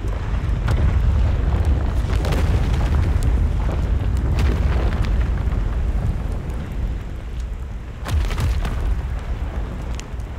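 Volcanic fissure eruption with lava fountaining: a deep continuous rumble with sharp cracks and pops scattered through it, a louder crack about eight seconds in.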